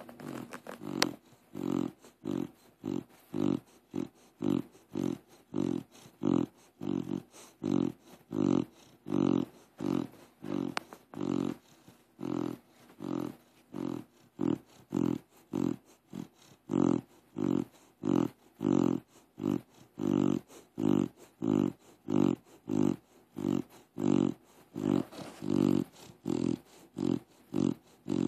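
A pit bull snoring in its sleep, steady and rhythmic at about two snores a second. The snores sound like a pig.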